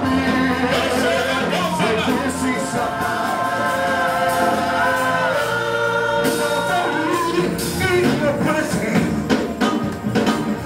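Gospel worship music: several voices singing long held notes over a steady bass, with drum hits more frequent in the second half.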